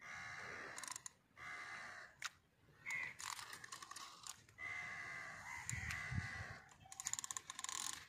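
Spinning fishing reel being cranked to retrieve line, a whirring gear buzz in several short bursts with brief pauses, ending in a run of rapid clicks.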